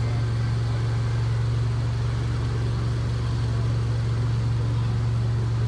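Garden tractor engine running steadily as it pulls a string of small ride-on trailers, a low even drone.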